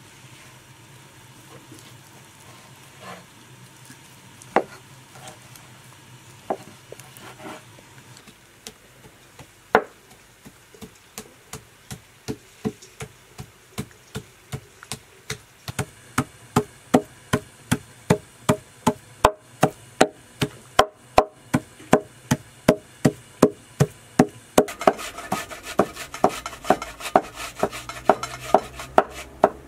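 Meat cleaver chopping raw veal on a wooden cutting board. A few scattered strikes come first, then from about ten seconds in a steady rapid chopping of about three to four blows a second as the meat is minced. A louder background hiss joins near the end.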